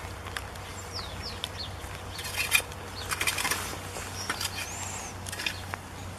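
Hay and straw rustling and crackling in a few short spells, the loudest about two and a half seconds in, with small birds chirping faintly in the background.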